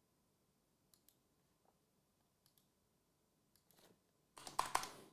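Near silence with a few faint clicks, then about four and a half seconds in a short burst of rustling and handling noise as a cardboard card box is handled on the table.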